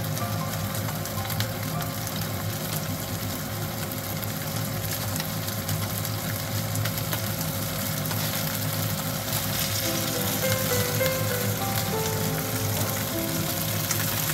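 Mirin-marinated silver flounder (ginkarei) fillets sizzling and crackling in oil in a nonstick frying pan. Light background music with short held notes comes in about ten seconds in.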